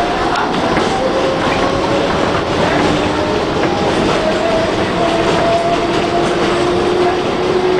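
New York City subway train running on elevated track, heard from inside the car: a steady rumble of wheels on rail with clicking over the rail joints, and a motor whine that slowly rises in pitch.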